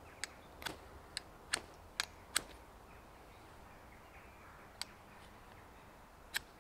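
Short, sharp scrapes of a Glock FM 78 field knife's drop-point tip struck down a ferrocerium rod to throw sparks: six strokes in about two seconds, then two more, spaced out, near the end.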